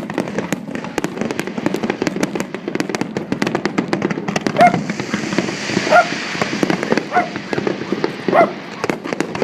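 Fireworks display: a dense, continuous run of crackling bangs and pops. In the second half, four short loud calls about a second apart stand out over it.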